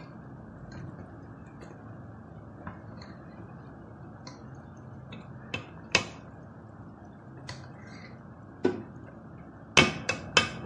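Steel spoon clinking and tapping against a metal cooking pot while rice is spooned in and spread: scattered light clicks, a sharper knock about six seconds in, and a quick run of three or four knocks near the end.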